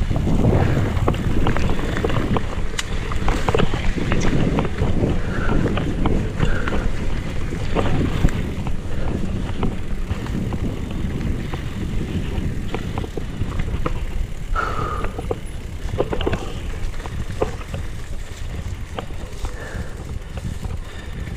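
Specialized Kenevo electric mountain bike riding fast down dirt singletrack: steady wind rush on the microphone with tyre noise, and frequent rattles and clicks from the bike over bumps. It grows somewhat quieter in the last few seconds.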